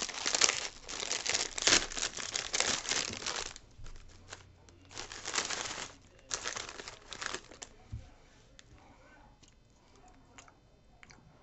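A foil potato chip bag being torn open and crinkled, with loud crackling for the first few seconds. Two shorter rustles follow as a hand digs into the bag, then faint crunching clicks as a chip is eaten.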